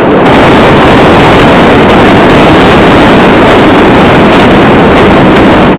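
Very loud, steady rushing noise with no clear tone, distorted at full level, that cuts off suddenly at the end.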